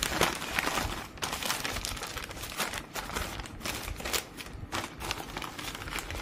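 Plastic courier mailer bag crinkling and tearing as it is ripped open by hand: a dense run of irregular crackles and rustles.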